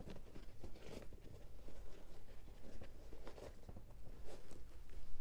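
Hands handling a leather Nike SB Dunk High sneaker: soft rustling, with a few faint scrapes and clicks as fingers work around the collar and laces.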